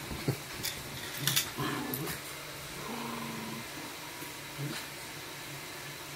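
Small white-and-brown terrier-type dog making short, low growling sounds during play, with a brief held whine about three seconds in.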